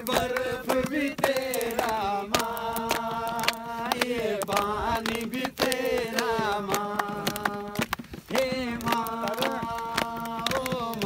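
A man singing a Hindi song without accompaniment, holding long notes that waver in places, with short breaks between phrases. Frequent sharp clicks sound over the singing.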